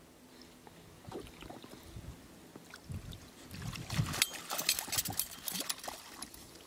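A hooked sockeye salmon splashing at the surface as it is scooped into a landing net beside the boat. The splashing starts about halfway through and is the loudest sound.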